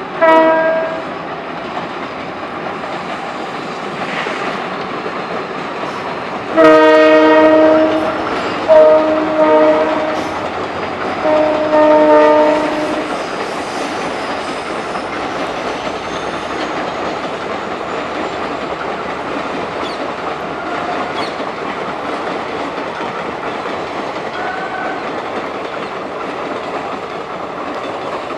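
EMD WDP4 diesel locomotive's multi-tone horn: a short blast at the start, then a long blast about six and a half seconds in, two short ones, and another long one around twelve seconds. Between and after the blasts, the steady rumble and wheel clatter of the passenger train rolling across a concrete river bridge.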